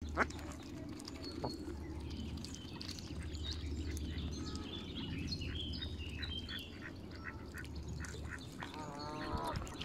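Mallard ducklings peeping: many short, high calls, thickest in the middle, over a steady low rumble. There is a sharp sound right at the start and a lower, wavering call near the end.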